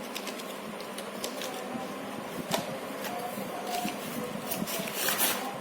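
Scattered light clicks and a short scratchy rustle about five seconds in, over a steady background hiss.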